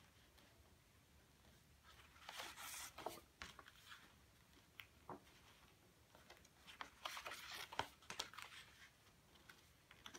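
Faint rustling and crinkling of stiff yellow card paper being folded and creased by hand, in two spells about two and seven seconds in, with a few soft taps.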